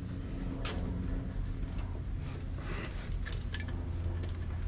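New distributor being worked into its bore in the engine's cylinder head, with a few faint clicks and scrapes of metal on metal as it is seated, over a steady low hum.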